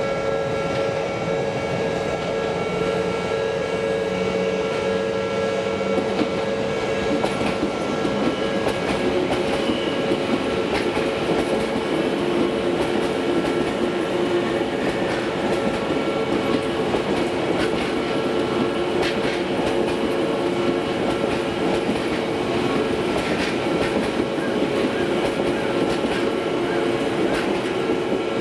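An Odakyu electric commuter train passing over a level crossing, its wheels clattering over the rail joints from about eight seconds in, while the crossing's alarm bells ring steadily.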